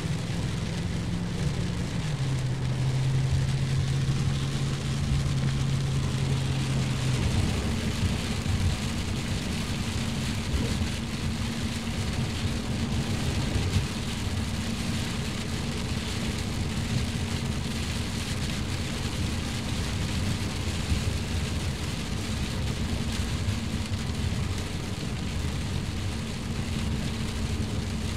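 Heavy rain on a moving car and tyre noise on the wet road, heard from inside the cabin. A low engine hum drops in pitch about two seconds in and fades out after about seven seconds.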